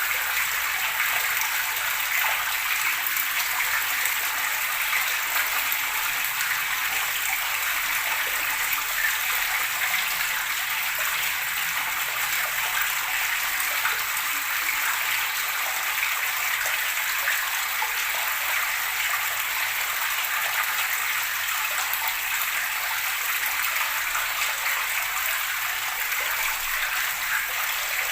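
Gurgling flowing water, a steady, unbroken rush of splashing.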